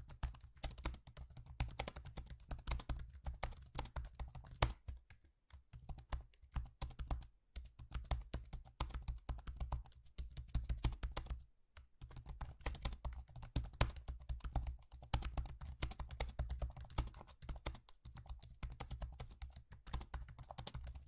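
Rapid keyboard typing: quick runs of key clicks broken by short pauses.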